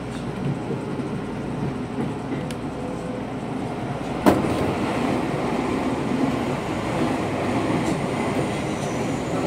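Seibu 2000-series electric train running, heard from inside its front cab: steady wheel and running noise. About four seconds in there is a sharp thump, and the noise then grows louder as an oncoming train passes close alongside.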